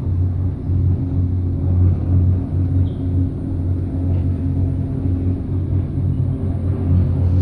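Steady low rumble inside a cableway gondola cabin as it travels along the cable.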